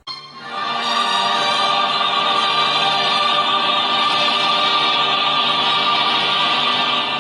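Background music of sustained, held chords with a choral quality, starting suddenly and swelling over the first second.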